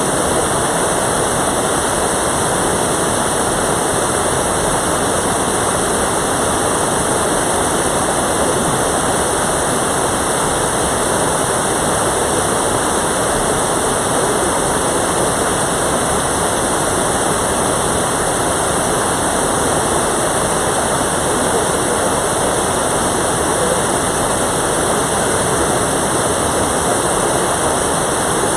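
Mountain valley stream, its water rushing steadily and loudly without a break.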